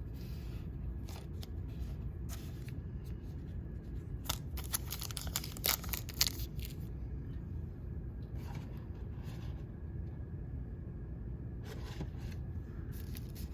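Trading cards and their packaging being handled: scattered light clicks and rustles, with a denser run of sharp clicks and rustling about four to seven seconds in, over a steady low hum.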